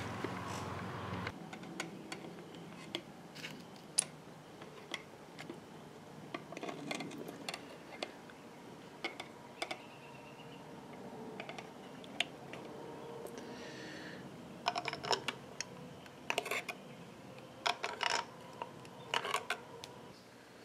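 Scattered light clicks, taps and small metal clinks of tools and parts being handled on the open cylinder head of a Kawasaki Ninja 500 engine, irregular and faint.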